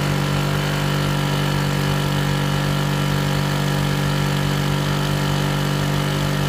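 Small generic Chinese 650–850 W two-stroke petrol generator running steadily at full throttle, working hard under a 600-watt heater load at about 95% of its capacity. The engine note holds even throughout.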